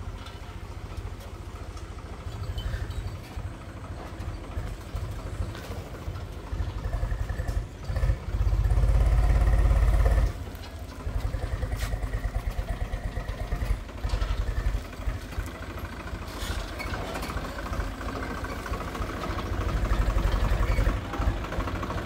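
Farm tractor's diesel engine running under load as it pulls a trailer of crushed stone, with a rapid low chugging beat, growing louder for a couple of seconds about eight seconds in.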